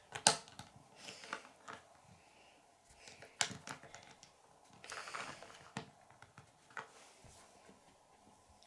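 Plastic Lego pieces being pressed and snapped onto a small build, with a scatter of small clicks, the sharpest about a quarter second in, and a short rustle of handling around five seconds in.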